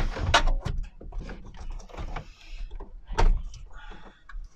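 Plastic airbox and ribbed rubber intake hose of a Mk2 Volkswagen Caddy being pulled and worked loose by hand: irregular plastic knocks, clicks and rubbing, with the loudest knocks right at the start and about three seconds in.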